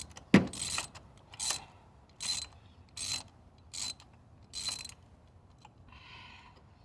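Socket ratchet wrench clicking in six short strokes about 0.8 s apart as a spark plug is worked loose, after a sharp knock just after the start.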